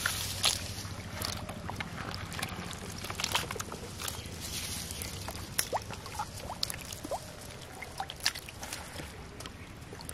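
Small live fish flapping and splashing in shallow water in a plastic basin: a scatter of short, irregular splashes and taps.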